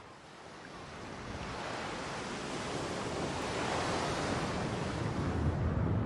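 Sea surf: a steady rush of waves fading in and growing louder.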